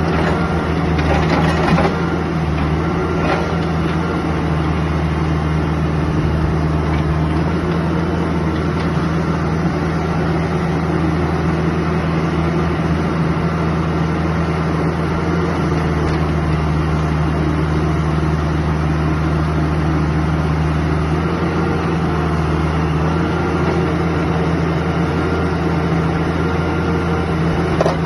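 A Kubota mini excavator's diesel engine running steadily at an even speed.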